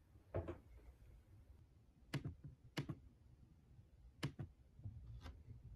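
About five faint, sharp clicks spaced a second or so apart, from a laptop being operated by keys and touchpad.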